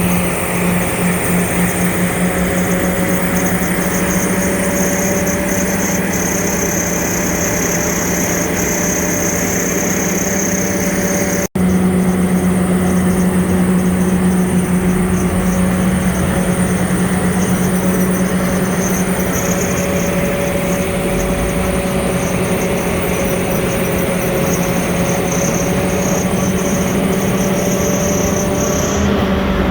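A large engine running steadily at constant speed, a loud, even drone with a strong low hum, broken by an abrupt dropout about twelve seconds in.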